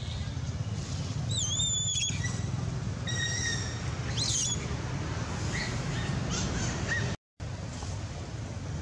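Several short, high whistled bird calls, some sweeping up and down in pitch, over a steady low rumble. The sound cuts out for a moment about seven seconds in.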